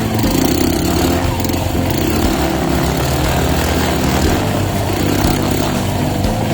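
Honda CRF trail motorcycle's engine running steadily as the bike is ridden, with road and wind noise.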